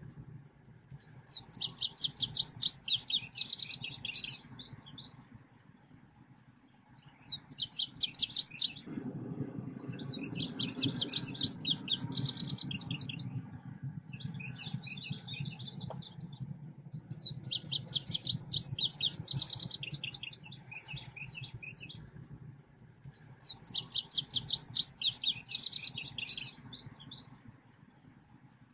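Song of the selendang biru bird played as a trapping lure call: bursts of rapid, high, chattering chirps a few seconds long, repeating every few seconds, over a faint low hum.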